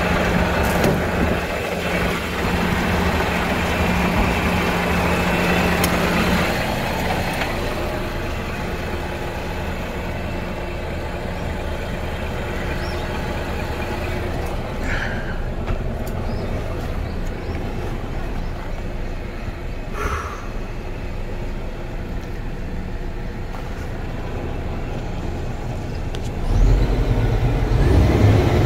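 Scania R470 truck's 12-litre straight-six diesel idling, heard first outside by the front wheel and then more quietly from inside the cab. About 26 seconds in it is revved to around 1,400 rpm and gets suddenly louder, with a heavy low rumble.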